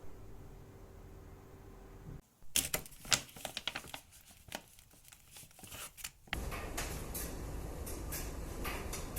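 Sharp, irregular clicks and taps, a few a second, for about four seconds in the middle. Before them there is a low steady hum, and after a sudden change about six seconds in, a steady rushing noise.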